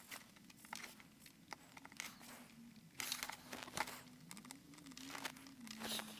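Solder melting on a circuit-board pad under a hot soldering iron, its flux crackling and spitting in faint, irregular small clicks.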